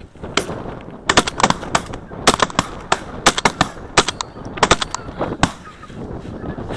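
A volley of shotgun fire from several hunters at a passing flock of geese: more than a dozen sharp shots in quick succession, stopping about five and a half seconds in, with geese honking.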